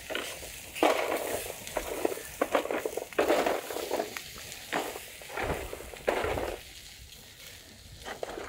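Cashew nuts roasting in their shells in a metal tray over an open fire: uneven bursts of sizzling and crackle as the shells burn, with the nuts rattling and scraping against the metal as a stick stirs them. The sound dies down for a moment near the end.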